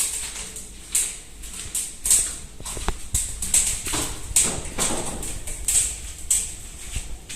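A series of short knocks or steps, about two a second, with a few sharp clicks about three seconds in.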